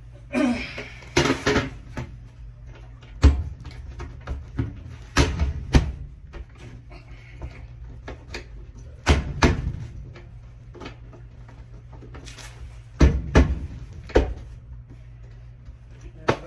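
Sheet-metal furnace access panels being handled and fitted back in place: a series of clanks and knocks in clusters a few seconds apart, over a steady low hum.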